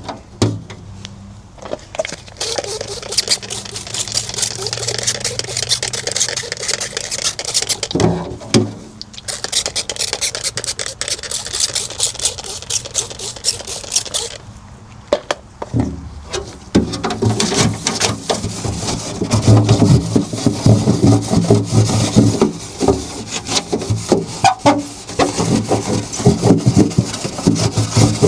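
Scrubbing on a refrigerator's surfaces: quick back-and-forth rubbing strokes, with short breaks and heavier, louder scrubbing in the last third.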